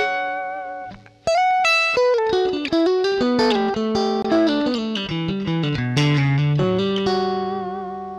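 Electric guitar recorded straight from the amplifier into the audio interface, with no microphones and no room sound. It plays a clean melodic phrase of single notes, pauses briefly about a second in, and ends on a held note that rings out. The sound is dry, flattish and plain.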